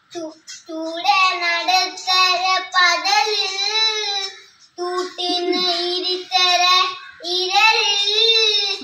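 A child singing a Malayalam devotional song unaccompanied, in three phrases of held, wavering notes.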